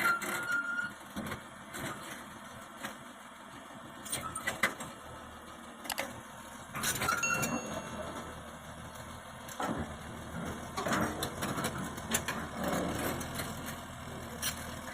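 Heavy machinery engine running low, with irregular sharp metal knocks and clanks and a couple of brief squeals, about seven seconds in.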